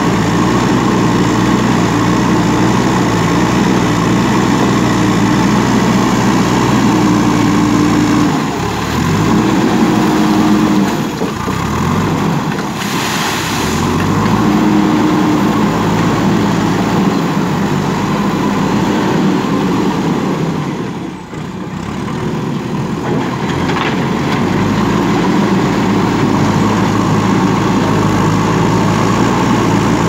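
JCB 3DX backhoe loader's diesel engine running steadily while it works its front loader bucket. The engine note rises and falls several times in the first half, and the sound dips briefly about two-thirds of the way through.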